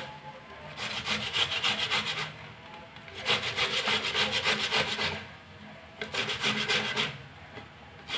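A tomato half rubbed back and forth on the blades of a stainless steel box grater: three spells of quick rasping strokes with short pauses between them.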